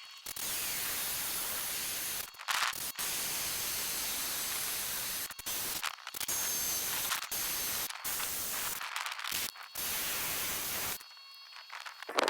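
Power drill boring a row of holes in steel, running in hissing stretches that stop and restart abruptly several times.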